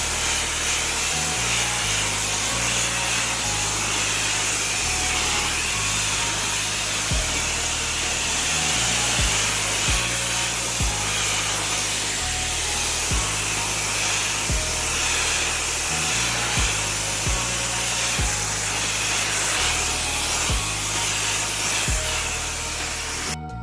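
Loud steady hiss of pressure-washer spray mixed with background music that has a beat and a changing bass line; the hiss cuts off suddenly just before the end, leaving only the music.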